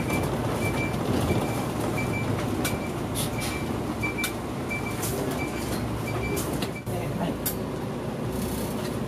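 Interior of a Mitsubishi Fuso Aerostar city bus under way at low speed: steady engine and road rumble, with a short high beep repeating about every half second and occasional clicks. About seven seconds in, the beeping stops.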